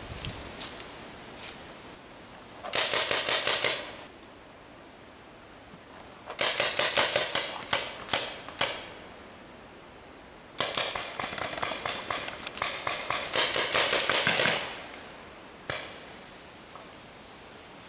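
Paintball markers firing in rapid volleys of shots. Several bursts each last one to a few seconds with pauses between them, and a single shot comes near the end.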